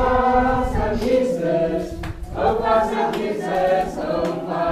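A group of San children singing a praise song together, voices only.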